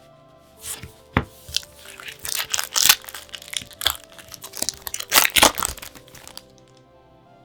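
Pokémon card packaging torn open and crinkled by hand: a run of crackling tears and rustles, loudest about three seconds in and again around five seconds, then stopping near the end. Soft background music plays underneath.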